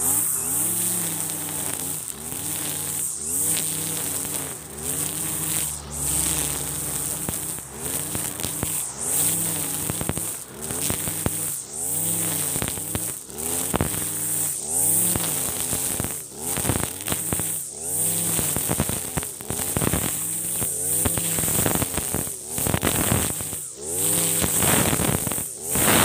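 A 42cc backpack brush cutter (type 542RBS) cutting grass, its engine pitch rising and falling about once a second as the shaft is swung back and forth, with the cutting head ticking against stems.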